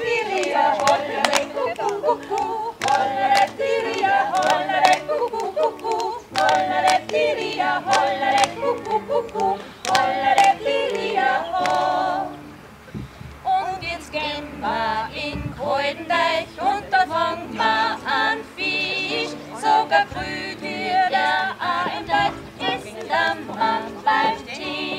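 A group of women singing a song together to acoustic guitar accompaniment, with a short break about halfway through before the singing picks up again.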